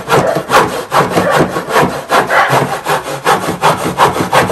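Handsaw cutting through a wooden plank, in steady back-and-forth strokes of about two to three a second.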